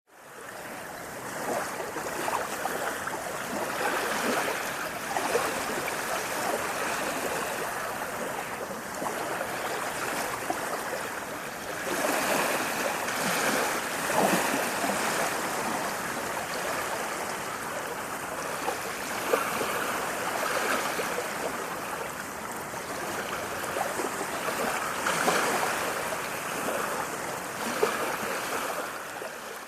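Running water, a steady, even rush with small uneven surges.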